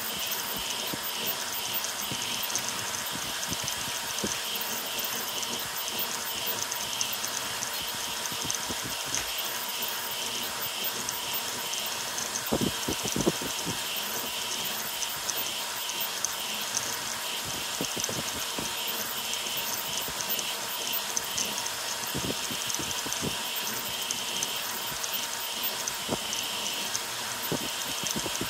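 A ZeroG Mercury 1.1 CoreXY 3D printer printing at high speed (400 mm/s, 40k acceleration). Its stepper motors buzz and chatter with each rapid direction change of the toolhead, over a steady hiss of air, with a few louder clicks near the middle.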